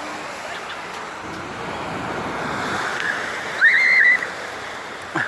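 Sea surf washing onto the shore in a steady rush that builds slightly over the first three seconds. About three and a half seconds in, a loud high-pitched cry lasts about half a second.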